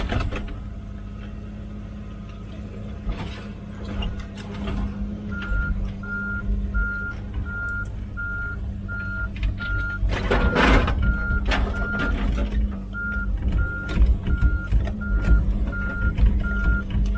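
Komatsu PC16 mini excavator's diesel engine running steadily while its travel alarm beeps about twice a second, starting about five seconds in. A loud crunching burst of noise comes about ten seconds in, with smaller ones earlier.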